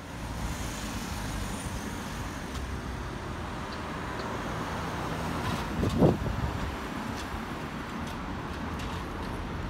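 Road traffic noise: a steady low rumble, with a short thump about six seconds in.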